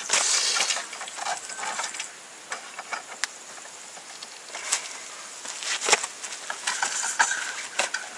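Car-awning side poles being pulled out and handled: scattered sharp clicks and knocks with rustling, the loudest knock about six seconds in.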